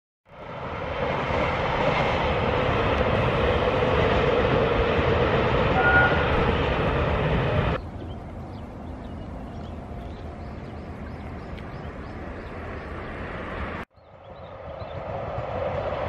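A loud steady noise for about eight seconds, then the quieter sound of a shallow stream flowing, then an electric commuter train approaching, growing steadily louder toward the end.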